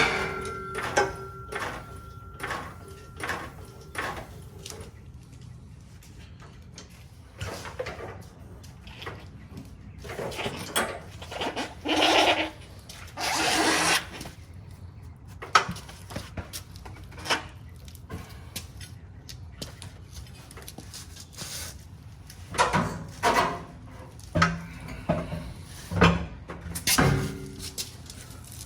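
Metal parts knocking and clanking during shop work, the first clank ringing on briefly. About 12 and 13.5 seconds in come two short bursts of a power tool, and a cluster of clanks follows near the end.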